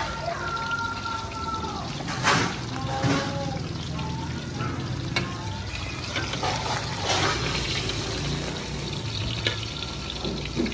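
Bánh xèo crêpes frying in woks of hot oil over gas burners: steady sizzling, broken by a few brief louder crackles.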